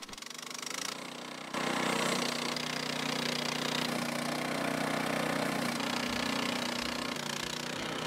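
The gasoline engine of a band sawmill runs steadily and gets louder about a second and a half in, as the saw head is pushed along the log.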